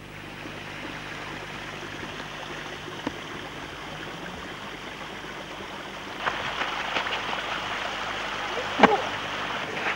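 Steady outdoor rushing noise. In the second half come scattered footfalls of people running on a road, and a louder thump close to the end.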